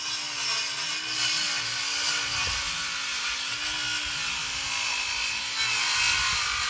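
Small circular saw running and cutting across a wooden board, a steady motor whine under the noise of the blade in the wood.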